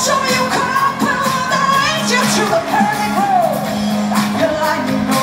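Live pop song played loud through a concert PA: a woman sings sustained, gliding notes over an amplified band with a steady beat, heard from among the audience.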